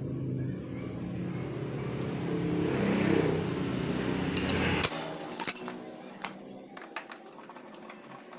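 Honda Astrea Grand's single-cylinder four-stroke engine idling rough with a 'klotok klotok' knock, caused by a loose magneto flywheel nut and a stray bolt rattling inside the magneto cover. The engine cuts off abruptly about five seconds in, followed by a few light metallic clicks.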